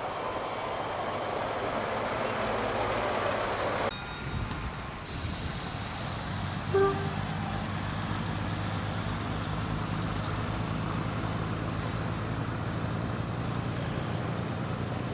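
Stainless-steel diesel railcar set rumbling past close by for about four seconds, then, after an abrupt cut, a diesel railcar's engine idling steadily at the platform. A short horn toot sounds about seven seconds in.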